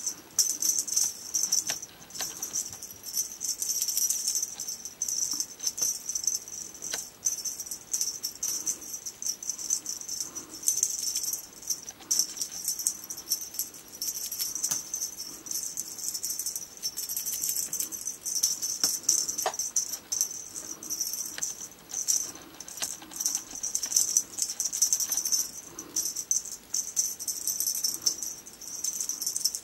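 Small bell cat toy jingling and rattling in quick, irregular bursts, almost without a break, as it is shaken.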